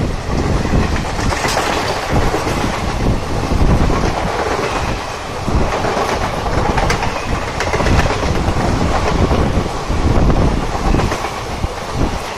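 Passenger express train rolling past, its wheels clattering over the rail joints in a loud, continuous rush of noise.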